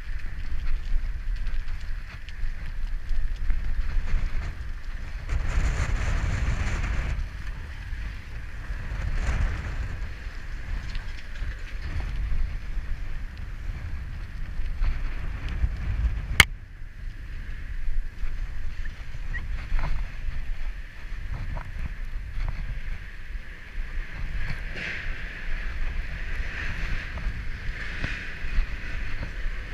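Bicycle ridden over wet asphalt: a steady hiss of the tyres on the wet surface under a low wind rumble on the microphone, with one sharp click about halfway through.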